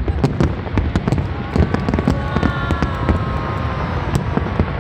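Aerial fireworks bursting in a dense, irregular barrage of bangs and crackles over a continuous low rumble. A slowly falling whistle-like tone runs through the middle.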